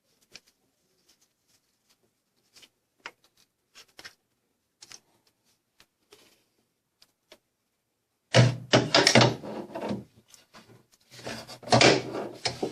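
Scattered light clicks and taps of an Allen key and metal parts as the lower timing chain tensioner is unbolted from a Nissan Frontier engine, then louder handling noise from about eight seconds in.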